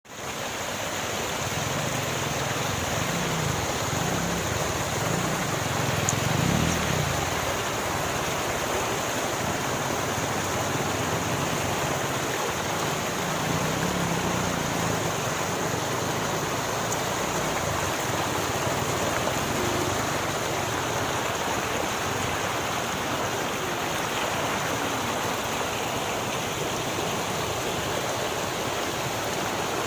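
River water flowing, a steady rushing noise with low rumbling swells in the first few seconds.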